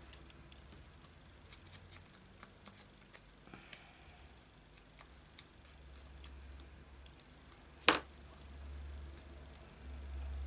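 Small crafting sounds of paper and tools handled on a tabletop: scattered light clicks and taps, then one sharp knock about eight seconds in.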